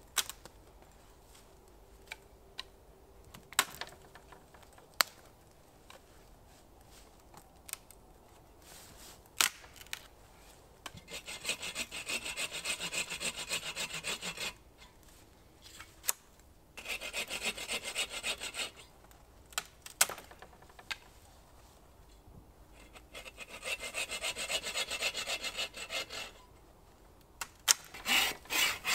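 Hand saw cutting through a downed branch, in three spells of rapid back-and-forth strokes that start about a third of the way in, with a fourth beginning near the end. Before the sawing there are scattered sharp clicks and snaps.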